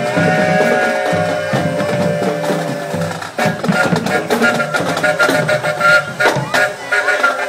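Marching band playing: saxophones and other woodwinds hold long notes, and about three seconds in the drums come in with frequent beats, the bass drum among them.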